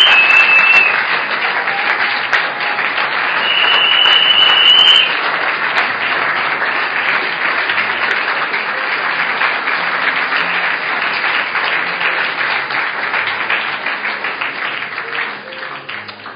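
Audience applause, a dense steady clapping, with two long high steady whistles in the first five seconds. The clapping dies away near the end.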